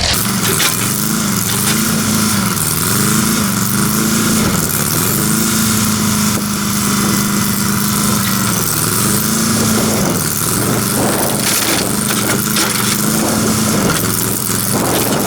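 Engine of a heavy demolition machine working under load, its pitch sagging and recovering every second or two, with scattered knocks and crashes from the building being torn down.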